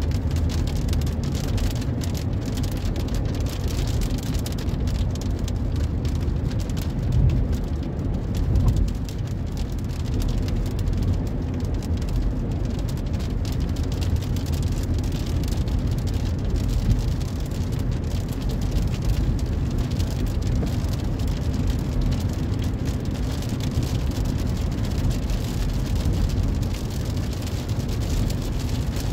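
Rain striking a car's windshield and roof, heard inside the moving car's cabin, over the steady rumble of engine and tyres on the highway.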